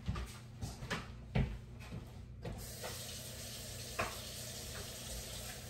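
A few knocks and clicks, then a tap turned on about two and a half seconds in, water running steadily into a sink.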